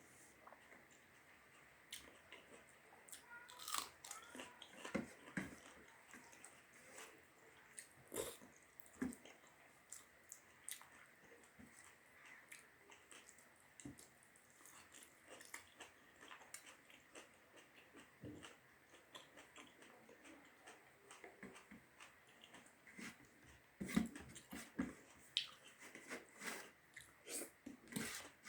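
Close-up mouth sounds of someone chewing big mouthfuls of rice with dal, curry and pickle: scattered wet smacks and clicks, busier near the end.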